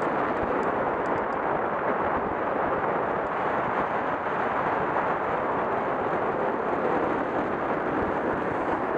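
Steady rush of wind and tyre noise from a car driving along a road, a loud even noise without breaks.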